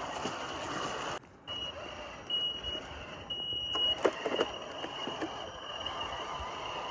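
Brushless motor and speed controller of a Traxxas TRX4 Sport RC crawler giving a steady high-pitched whine, briefly louder in a few short stretches as the throttle is worked. A quick cluster of knocks comes about four seconds in as the truck clambers over roots and rocks.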